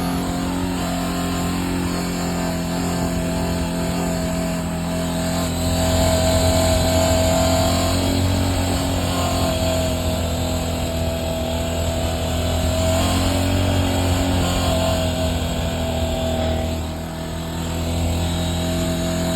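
CFMoto 250NK motorcycle's single-cylinder engine running at a steady speed, with a thin whine that fades and returns several times. The owner puts this whine forward as an unexplained noise coming from the bike.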